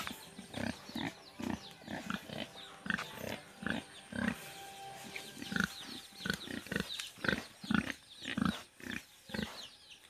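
Castrated black pig (barrow) grunting over and over in short grunts, two or three a second.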